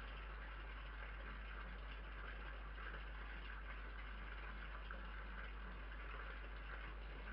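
Steady hiss with a low electrical hum from a security camera's built-in microphone, with no distinct event standing out.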